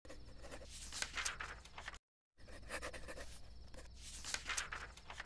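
Pen scratching on paper as someone writes in a notebook, in short faint irregular strokes over a low room hum. The sound drops out completely for a moment about two seconds in.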